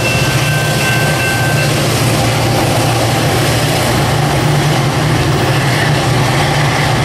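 NCTD Coaster commuter train's diesel locomotive passing close by, its engine giving a loud, steady low drone over the rumble of the train on the rails.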